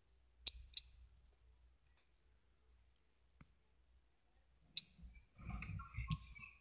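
Sharp, brief handling clicks: two close together about half a second in and another just before five seconds, followed by about a second of low rustling handling noise near the end.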